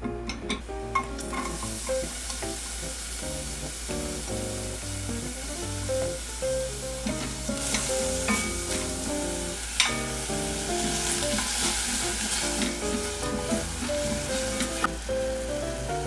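Minced garlic and diced Korean zucchini sizzling in oil in a stainless steel pot while being stirred with a silicone spatula, with a few sharp clicks of spatula against the pot. The sizzle grows louder about halfway through, as the zucchini is added and stir-fried. Soft background music plays under it.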